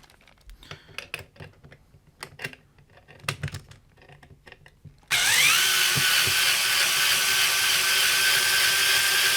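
A few small clicks and knocks of parts being handled, then about five seconds in a power drill starts up, its whine rising quickly and then running steadily at speed.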